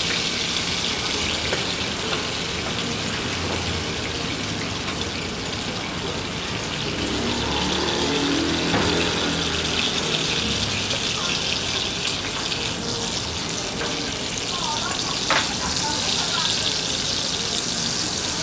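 Steak frying in melted butter in a nonstick pan: a steady sizzle as wooden chopsticks push and turn the meat. One sharp knock comes near the end.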